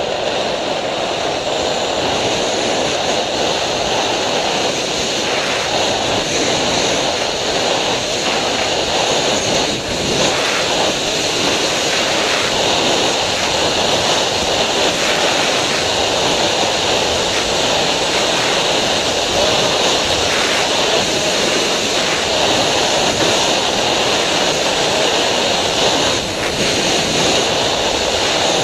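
Steady rushing wind noise on a helmet-mounted camera's microphone during a fast downhill ski run.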